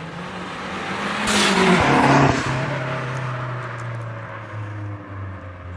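Mazdaspeed3's turbocharged 2.3-litre four-cylinder accelerating with rising pitch, then a loud rush of air from the Turbosmart blow-off valve venting as the throttle closes about a second in, lasting about a second. The engine then runs on at lower revs.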